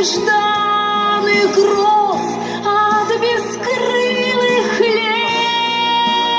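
Music: a woman singing a song over instrumental accompaniment, holding one long note near the end.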